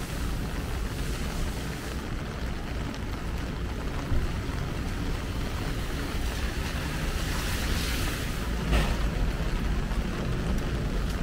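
Heavy rain falling, a steady rushing hiss over a deep rumble, swelling louder about seven seconds in.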